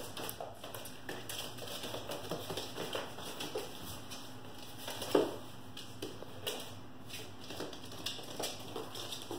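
Puppies' claws and paws clicking and pattering on a hard floor as they scamper about, with scattered small taps and one louder knock about five seconds in.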